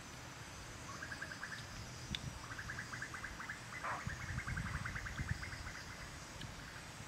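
Forest ambience: a faint steady high insect hum, a rapid ticking trill that starts about a second in and returns for about three seconds in the middle, and soft low knocks and rustles from hands working in a wooden bowl.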